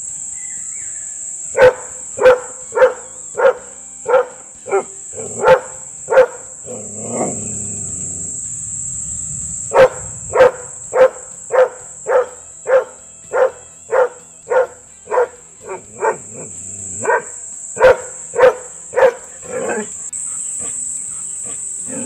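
A year-old female Doberman Pinscher barking aggressively on a leash, in two runs of sharp barks about two a second with a pause of about three seconds between them. A steady high-pitched hiss runs underneath.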